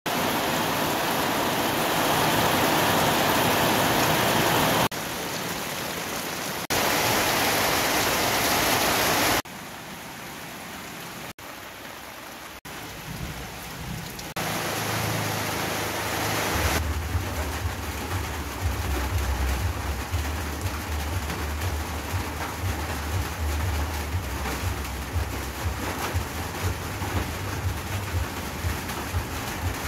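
Heavy rain falling and splashing on the ground, in several short takes that change level abruptly. From about 17 seconds in, a low steady hum with light, repeated knife strokes as a chayote is peeled with a cleaver over a plastic cutting board.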